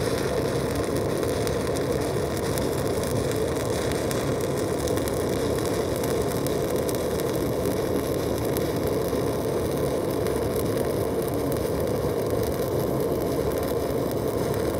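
Stick (shielded metal arc) welding with a 1/8-inch 7018-1 electrode at about 125 amps: the arc burns steadily as the bead is run.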